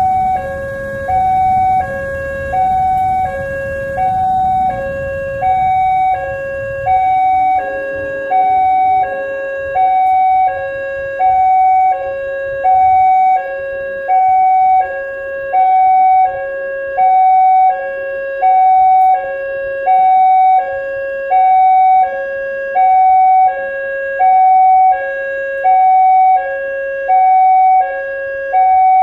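Electronic warning siren of a road–railway level crossing, alternating steadily between a high and a low tone, one high–low pair about every one and a half seconds, the alarm that a train is approaching. A low rumble fades out over the first several seconds.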